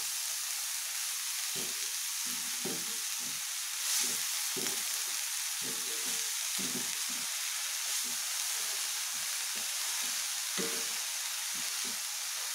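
Chopped chivai greens sizzling in hot oil in a metal kadhai on medium heat while a wooden spatula stirs and turns them: a steady frying hiss with repeated stirring strokes, one or two a second.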